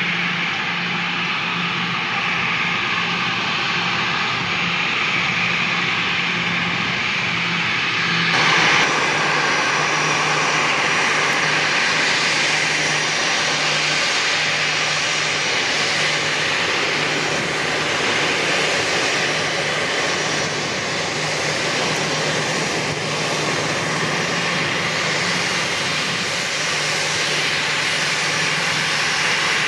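Turbofan engines of an Edelweiss Air wide-body airliner running at low taxi power: a steady jet hum with a low tone under it. The sound shifts abruptly about eight seconds in, with more high hiss after the change.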